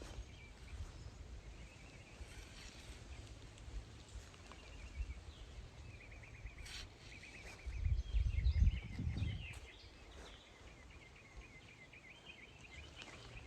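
Outdoor garden ambience: a small bird sings fast, repeated chirping trills several times over a constant low rumble. The rumble swells into a louder burst for about a second and a half, about eight seconds in.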